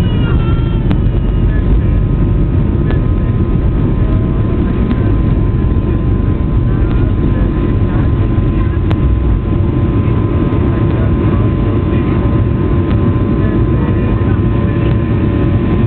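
Airliner cabin noise in flight: a loud, steady, low rumble of engines and airflow, with a faint steady whine above it.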